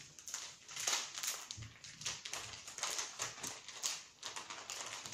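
Plastic spice packets crinkling and rustling as they are picked up and shuffled through, a quick irregular run of crackles and light taps.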